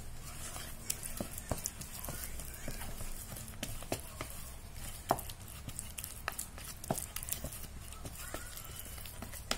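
Green plastic spoon mashing and stirring a crumbly fishing-bait mix in a plastic bowl: irregular clicks and taps of the spoon against the bowl and the grains, the sharpest about five seconds in.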